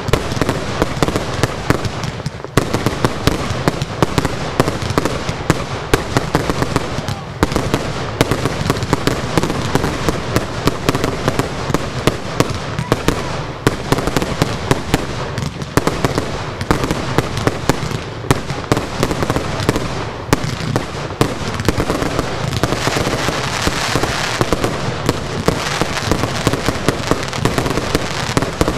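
Fireworks finale barrage: many aerial shells bursting in quick, overlapping succession, a dense and unbroken run of loud bangs.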